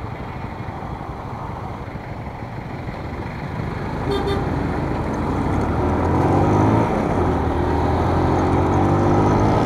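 Motorcycle engine idling at a stop, then revving as the bike pulls away about four seconds in. Its pitch rises, drops at a gear change and rises again. A short horn toot sounds just as it sets off.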